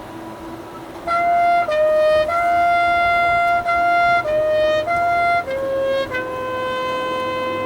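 Marching band wind instruments playing a slow melody. From about a second in, a run of held notes steps up and down between two pitches, then settles on a lower note held for well over a second.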